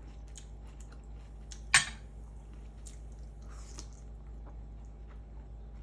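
Quiet mukbang eating sounds: soft chewing and small scattered clicks, with one sharp clink of tableware a little under two seconds in.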